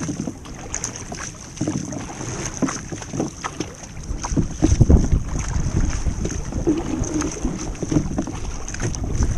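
Water sloshing and knocking against a kayak hull at sea, with wind rumbling on the microphone that grows stronger about four seconds in.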